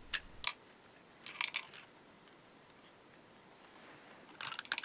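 Small plastic clicks and crackles from a Bachmann HO scale crane car as its crank knob is turned and the model is handled. Two clicks at the start, a cluster about a second and a half in, and another near the end.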